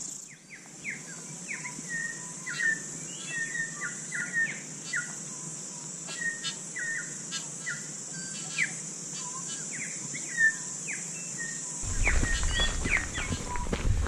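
Small birds calling in short chirps and quick sweeps, scattered every half second or so, over a steady high insect buzz. Near the end a low rumble comes in, with footsteps.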